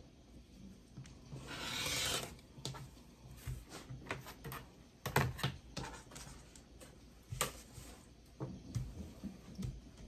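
Rotary cutter blade rolling through cotton fabric along an acrylic quilting ruler on a cutting mat, one scraping cut of about a second near the start. After it come scattered clicks and taps as the ruler and cut strips are shifted on the mat.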